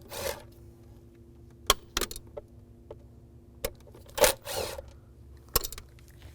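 Scattered clicks, taps and scrapes of a Phillips screwdriver working small screws out of the plastic center-console trim, with a longer scrape a little past four seconds, over a faint steady hum.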